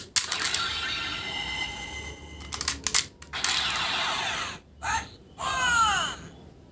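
Electronic sound effects from a DX Engine Changer toy morpher's small speaker, with sweeping tones and a run of falling pitch sweeps near the end, broken by plastic clicks as the toy is handled.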